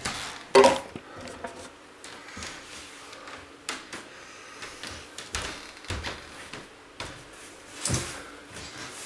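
Belongings being handled and unpacked by hand: a sharp knock about half a second in, then scattered softer knocks and rustling.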